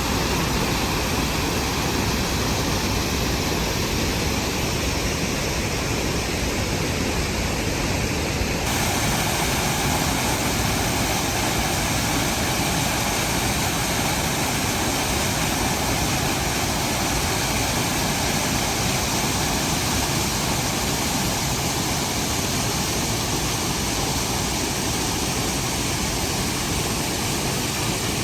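Rhine Falls, a large waterfall, making a steady rush of water noise. The sound shifts slightly in tone about a third of the way in.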